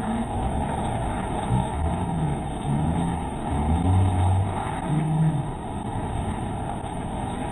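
Cars driving through deep floodwater on a street: a steady rush of water, with engine sounds rising and falling underneath, loudest about four seconds in.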